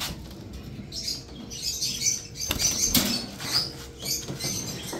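Budgerigars chirping in short high calls, with wings flapping and a couple of sharp knocks about two and a half and three seconds in.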